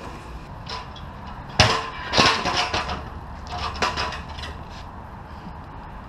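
Skateboard popped and clattering on concrete: one sharp crack about a second and a half in, a burst of rattling clacks just after it, and a few more clacks near the four-second mark.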